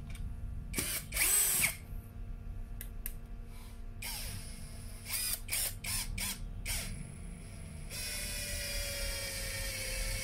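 Toyoko 16.8V cordless screwdriver driving a small screw into a wooden block: short trigger blips with scattered clicks, then about two seconds of steady motor whine near the end, dropping slightly in pitch.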